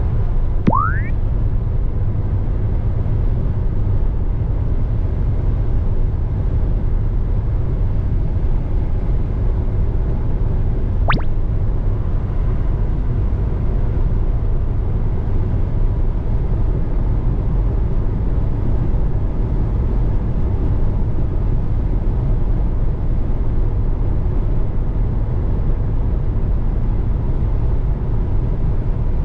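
Steady low rumble of a vehicle on the road, with a short rising tone about a second in and a brief sharp sweep about eleven seconds in.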